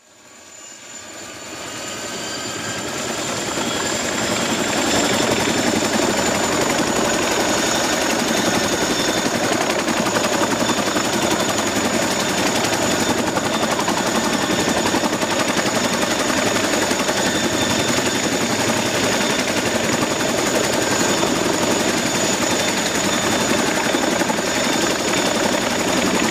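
Two small DC motors of a homemade toy helicopter spinning its two rotors: a steady whirring with a high, thin motor whine. It builds up over the first few seconds, then runs level.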